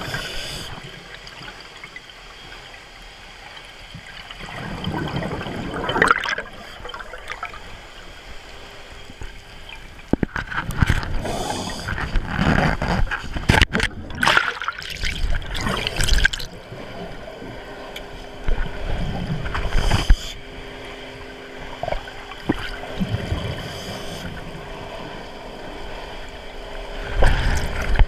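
Underwater sound through a camera housing: a scuba diver's exhaled bubbles gurgling up in surges every few seconds, with handling knocks and rubbing as a gloved hand works close to the camera. A faint steady hum runs under it in the second half.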